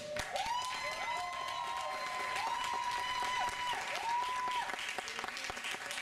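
Audience applauding and cheering, with several long, high-pitched shouts overlapping during the first four seconds or so, then fading as the clapping goes on.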